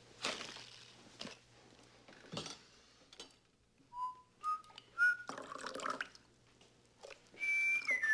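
A man whistling: three short notes stepping upward about four seconds in, then a long held note near the end that steps down in pitch. Between them, liquid pouring from a plastic bottle into a coffee mug, with a few soft knocks and rustles earlier on.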